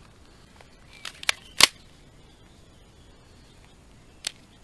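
Sharp clicks and knocks of polymer AR-15 magazines being picked up off a wooden table and handled: three close together about a second in, the last the loudest, and one more near the end.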